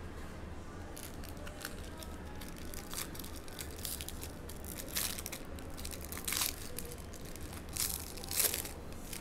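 2023-24 Donruss Basketball hobby packs being torn open and their foil wrappers crinkled, in several short rips and rustles. The loudest come in the second half.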